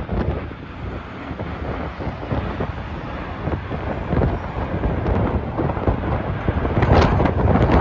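Storm-force wind buffeting the microphone in gusts, over the low rumble of a four-engined airliner's jets as it passes overhead and climbs away on a go-around.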